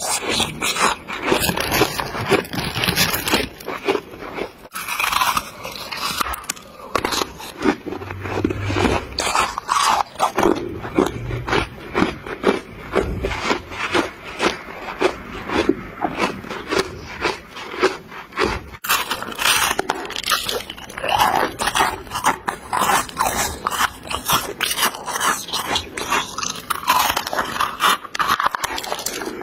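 A person biting and chewing chunks of refrozen freezer frost: dense, continuous crunching.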